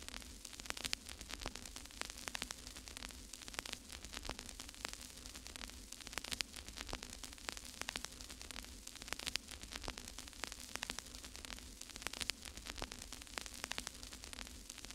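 Faint crackling static: irregular clicks over a soft hiss, with a low steady hum underneath.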